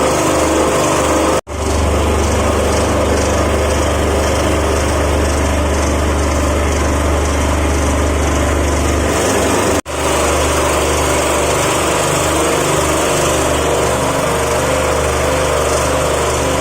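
Vibrating flour sieve machine running steadily with a low motor hum. The sound cuts out abruptly for an instant twice, about one and a half seconds in and again near ten seconds.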